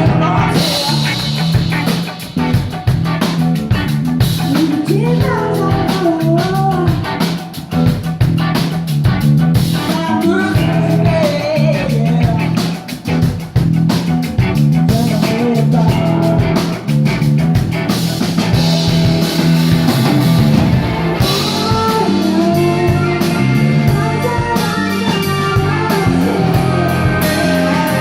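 Live rock band playing a song: electric guitar, bass and drum kit, with a voice singing over them.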